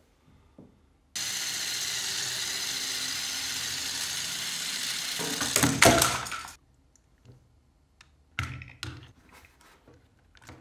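Electric motors and plastic gears of a motorised LEGO Technic car whirring steadily as it drives, starting abruptly about a second in; near the end of the run there is a loud clatter of plastic knocks as the car crosses the gap between two tables, and the whirring cuts off suddenly. A few light plastic clicks and knocks follow as the bricks are handled.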